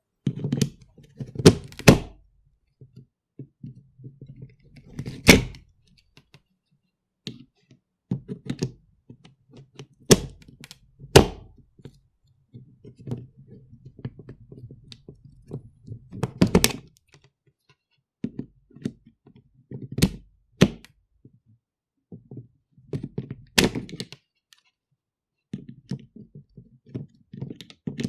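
Mobile phone charger plug pushed into and pulled out of a power strip socket over and over: sharp plastic clicks and knocks every one to several seconds, with quieter handling rattle in between.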